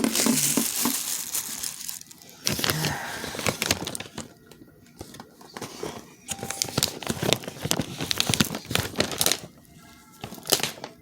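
Packaging crinkling and rustling as it is handled, in irregular bursts of crackly noise.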